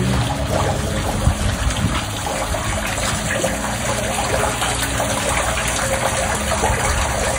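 Water running down into a storm drain under a metal grate, a steady rush of flowing water.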